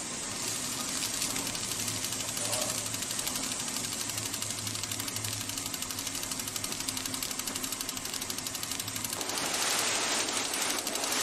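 Steady, rapid mechanical clatter over a low hum, giving way about nine seconds in to a more even hissing rush.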